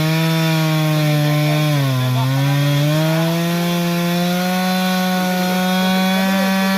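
Chainsaw on an Alaskan chainsaw mill running at full throttle, ripping lengthwise through a pine log. The engine pitch sags about two seconds in as it bogs under the load, then recovers and holds steady.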